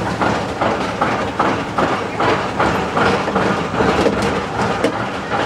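Roller coaster climbing its chain lift hill: the lift chain rattling steadily and the anti-rollback ratchet clacking about two to three times a second.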